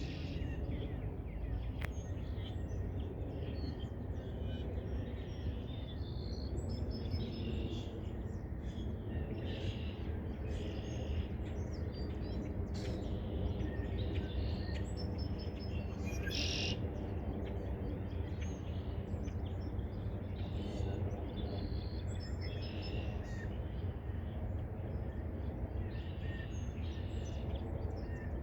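Small birds chirping and calling on and off, many short high chirps, over a steady low background rumble.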